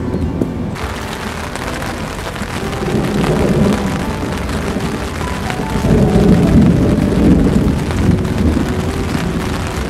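Storm: a steady rush of heavy rain, with rumbles of thunder swelling about three seconds in and again around six seconds.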